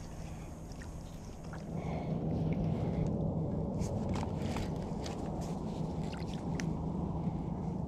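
Fishing kayak moving on calm water: a steady low hum and rush that grows louder about two seconds in, with scattered light clicks and taps in the second half.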